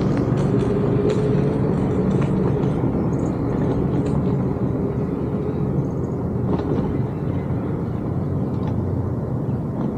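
A motor running steadily with a low hum, with a few light clicks and rattles over it.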